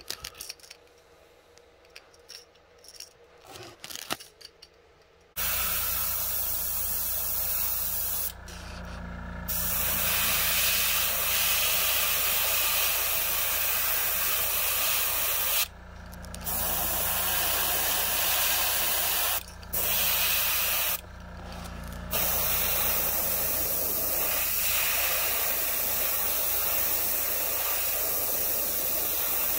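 Iwata Eclipse airbrush spraying paint in long hissing bursts, the trigger let off briefly four times, over the steady low hum of its Master TC-40 compressor. Before the spraying starts, a few light clicks of the lure being handled.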